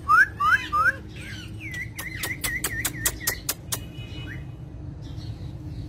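Pet parrot whistling: three quick rising chirps in the first second, then, about two seconds in, a rapid run of about nine sharp clicks under a wavering whistle that stops before four seconds.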